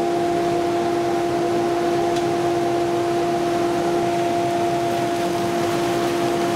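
Workshop dust extraction system running, a steady hum with a rush of air as it draws suction through the router table's openings.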